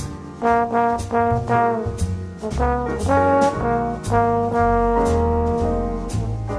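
Background music: an upbeat jazz tune led by brass horns over a drum beat, with one long held note a little past halfway.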